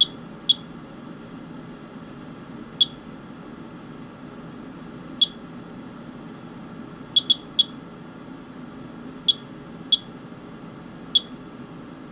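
Geiger counter beeping once per count at random, uneven intervals, about ten short high chirps in twelve seconds, two or three sometimes close together. It is counting radiation from a wiped-up rain sample, which the owner takes for radioactive fallout.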